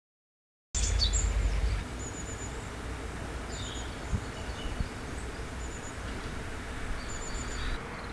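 Small wild birds calling in short, high-pitched chirps, repeated at intervals, over steady outdoor background hiss. The sound starts abruptly about a second in, with a low rumble for the first second.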